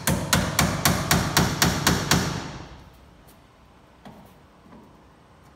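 Claw hammer driving nails through an electrical box's mounting tabs into a wooden shim block: about ten quick, loud strikes at roughly four a second that stop about two and a half seconds in, followed by one faint knock.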